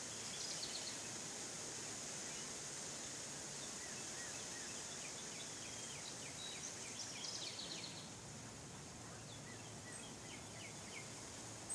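Birds chirping in scattered bursts of short, quick notes over a steady high hiss.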